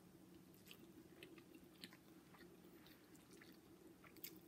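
Faint chewing and eating sounds: scattered soft clicks of mouths and fingers working pieces of chicken, over a low steady hum.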